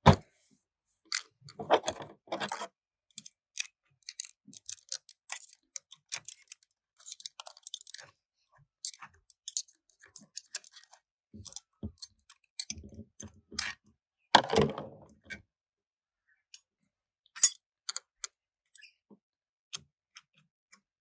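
Metal parts of a BTR four-speed automatic transmission and hand tools clinking and clicking as it is taken apart, in scattered short clicks with a few louder knocks and scrapes.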